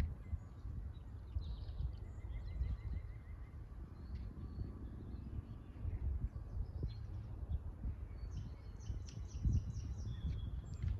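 Songbirds chirping and trilling, with a quick run of high notes near the end, over a steady low rumble.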